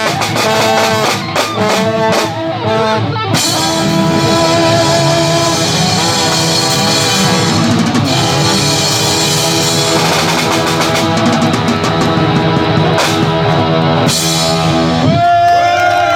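A rock band playing live with electric guitar and drum kit. A choppy, stop-start riff gives way about three seconds in to the full band playing steadily, and there are bending, held guitar notes near the end.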